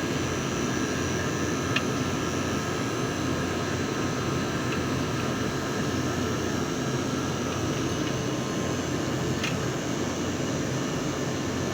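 A steady mechanical drone, with a few faint clicks.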